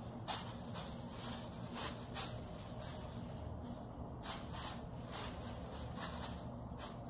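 Gloved fingers rubbing and scraping sand into a wet painted canvas: a series of short, scratchy swishes at irregular intervals.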